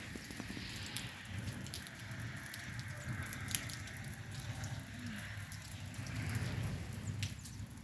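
Rain falling, with scattered individual drops clicking and tapping over a steady hiss and a low rumble.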